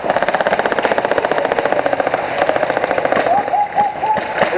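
Airsoft gun firing a long full-auto burst: a rapid, even train of sharp clicks, about fifteen to twenty shots a second, fading after about three seconds.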